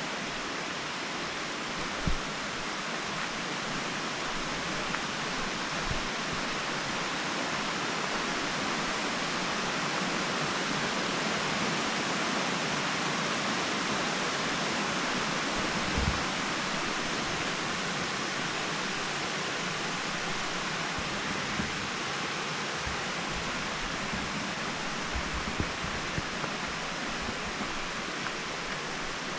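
Steady rushing of Taughannock Creek flowing over shallow rocky riffles, swelling slightly in the middle, with a few soft low thumps.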